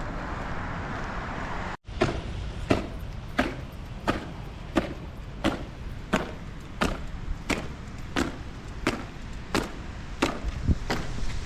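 Footsteps striking hard ground in a steady marching rhythm, about three steps every two seconds, after a short stretch of even background noise.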